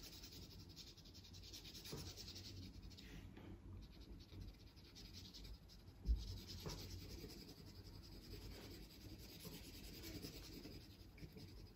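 Graphite pencil scratching faintly on paper in small, overlapping oval strokes, with a single soft thump about six seconds in.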